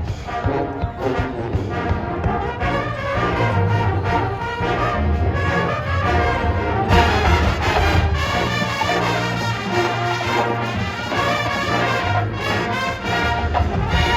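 Marching band playing a brass arrangement of a 1960s rock hit, with the brass carrying the tune.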